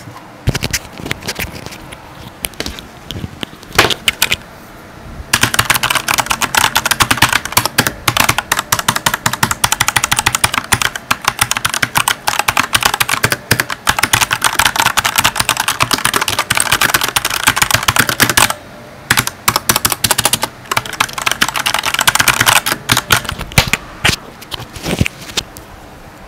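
Typing on a Vortex VX7 mechanical keyboard with Outemu Red linear switches: a few scattered keystrokes, then about five seconds in a fast, continuous run of keystrokes, a brief pause, a second run, and a few last taps near the end. Not too noisy for a mechanical keyboard.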